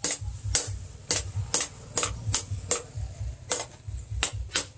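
Hand hammer striking a steel axe blade held in tongs on a small post anvil: sharp metallic blows in a steady rhythm, about two to three a second.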